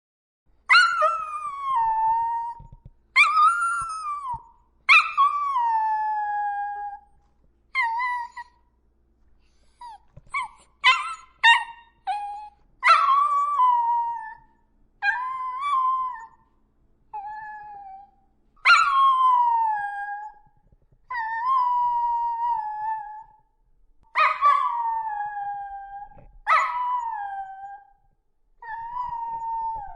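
A dog howling and whining in a series of about a dozen drawn-out, high-pitched calls, each starting high and sliding down in pitch, with a quick run of short yelps in the middle.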